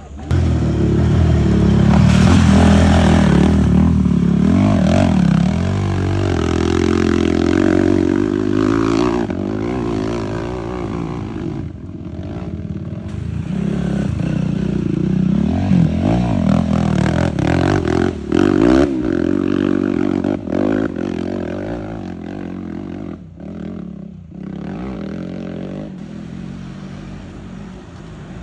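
Dirt bike engines revving hard on a steep hill climb, the pitch rising and falling again and again as throttle is worked on and off. The engines drop off briefly about twelve seconds in and again a little over twenty seconds in.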